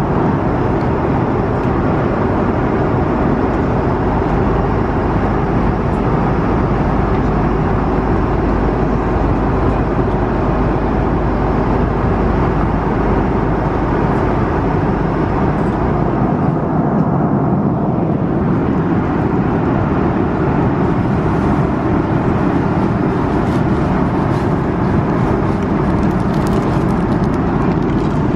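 Steady roar of an Airbus A330-300 airliner cabin in flight: airflow and engine noise. Faint clicks and rustles come near the end.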